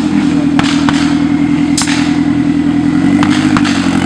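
Off-road buggy's engine running hard at high, steady revs as it climbs out of a trench, dipping briefly about three seconds in. Several sharp knocks and clatters sound over it.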